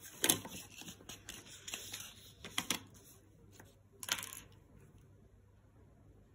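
Paper and a clear plastic ruler being handled on a tabletop while a pen is picked up and set to the ruler: several short rustling scrapes and taps. The loudest comes about a quarter second in and another about four seconds in, with quieter handling between.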